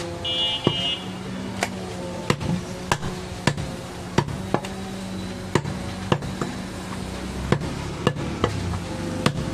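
Butcher's knife cutting a goat rib rack on a wooden log chopping block, the blade striking the block in sharp, irregular knocks about one and a half times a second, over a steady low hum.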